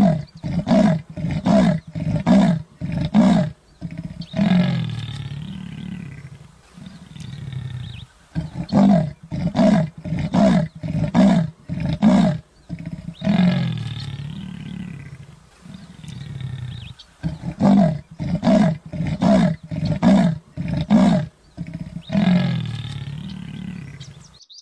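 Leopard sawing call: a run of rhythmic grunts, about two or three a second, ending in a longer drawn-out call. The sequence comes three times.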